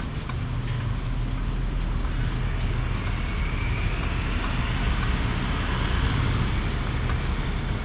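Steady low rumble of road traffic, with a faint whine that rises and then falls in the middle.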